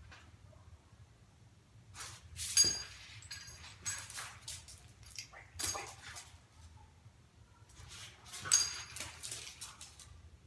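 A Basenji's collar tags jingling and clinking in short bursts, with its paws on concrete, as it spins and sits. The loudest jingles come about two and a half seconds in and near the end.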